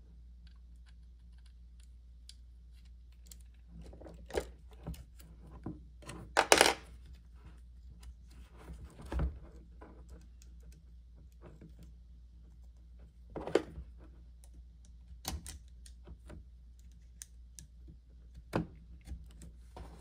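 Scattered small clicks, taps and scrapes of metal and plastic parts being handled on an oscillating multitool as its carbon brush, brush spring and brush wire are worked with small hand tools. A few knocks are sharper, the loudest about six and a half seconds in.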